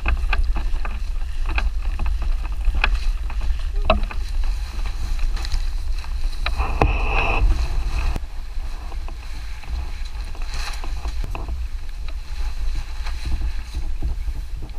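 Wind buffeting the microphone as a steady low rumble, with scattered short clicks and knocks and a brief rustle about seven seconds in.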